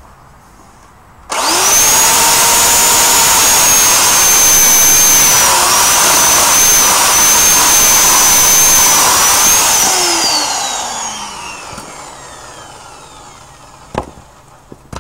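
Corded electric chainsaw switched on and running at a steady high whine, its pitch dipping slightly as it cuts through a log, then released and coasting down with a falling whine. A single knock near the end.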